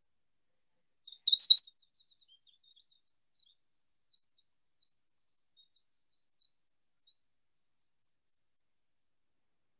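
Recorded winter wren song played through a computer's speakers and picked up by the microphone on a video call: a loud burst of the first high notes about a second in, then the rest of the long, rapid, tumbling song comes through only faintly until near the end.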